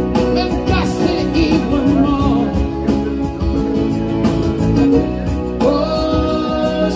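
A song playing: singing over instrumental backing that includes guitar.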